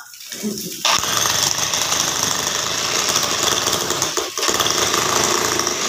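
Electric demolition hammer pounding into hard adobe ground, with a steady rattling hammering that starts about a second in, stops briefly a little past four seconds, then starts again.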